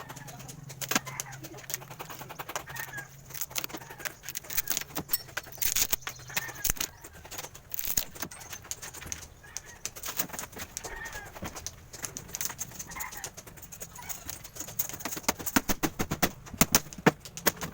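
Irregular knocks and clatter of wood and tools being handled during a table repair, coming thicker near the end, with birds chirping in the background. A low hum runs underneath and stops about seven seconds in.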